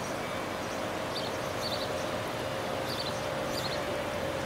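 Steady rush of a river, with the faint steady hum of an approaching Stadler ABe 4/12 narrow-gauge railcar coming in about half a second in. Short high chirps repeat about twice a second over it.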